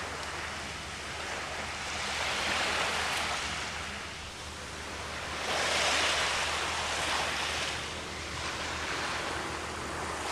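Sea waves washing onto the shore, the surf swelling and easing every few seconds.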